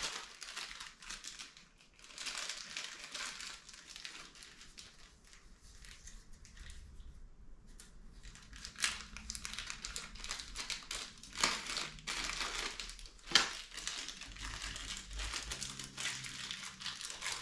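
Crinkling plastic of a small parts bag being handled and opened by hand: continuous rustling with a few sharper crackles in the second half.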